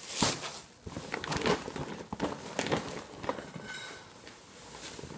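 Plastic grocery bags and packaging rustling and crinkling as items are handled, with a few light knocks, busiest in the first few seconds.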